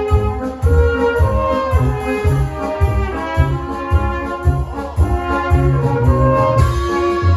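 Brass band playing live: trumpets and trombones carry a melody over a steady, pulsing bass line.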